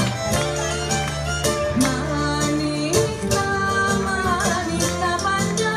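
Greek island folk music for a syrtos of Naxos, a violin leading the tune over a steady beat.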